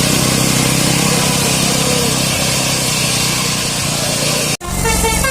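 Bus diesel engine running loudly and steadily under load. Near the end the sound cuts off abruptly, and a telolet basuri multi-tone bus horn starts playing its melody of quick, stepping notes.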